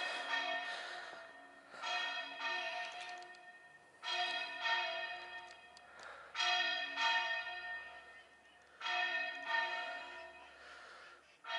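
Church bells ringing: struck in pairs of strokes about every two and a half seconds, each ringing on and fading before the next pair.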